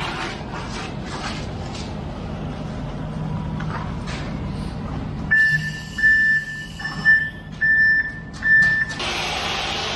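Concrete mixer truck's diesel engine running steadily, then its reversing alarm beeping five times, about one beep a second, as it backs up; a steady hiss comes in near the end.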